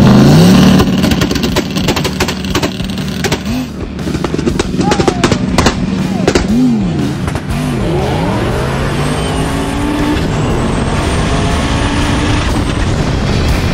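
Street-race cars launching hard from a standing start. The engines rev up and shift through the gears, with the pitch climbing and dropping several times, sharp cracks and some tire squeal along the way, then settle into a steadier high-speed run.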